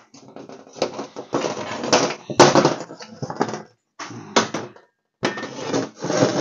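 Rusty exhaust manifolds and steel header tubes clanking and rattling against a sheet-metal worktable as they are handled and set down: a run of irregular metal knocks with brief pauses, loudest about two and a half seconds in.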